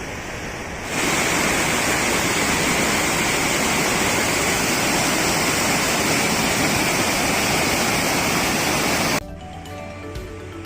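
Steady, loud rush of fast-flowing river water, starting abruptly about a second in and cutting off suddenly near the end, where background music with a regular beat takes over.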